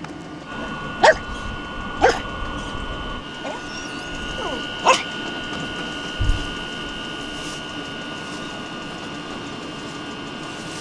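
A dog barking in short, sharp barks, three times over about four seconds. A steady high tone hums underneath.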